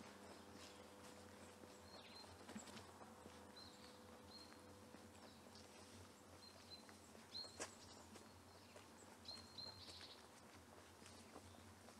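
Faint outdoor quiet with a small bird giving short, high chirps, one every second or so, and faint footsteps.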